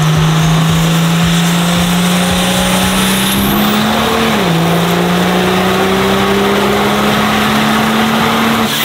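Twin-turbocharged Cummins diesel under full throttle during a chassis-dyno power pull, making well over 1,000 horsepower. Its note climbs steadily, drops once about four and a half seconds in, then climbs again, with a high turbo whistle rising over the first few seconds.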